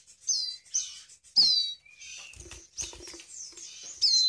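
A basket of ciblek gunung (bar-winged prinia) nestlings chirping over and over in high, quick notes that fall in pitch, as baby birds do when begging. A few soft low knocks come from the basket being handled a little past halfway.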